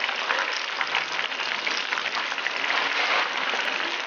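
A crowd applauding: dense, steady clapping.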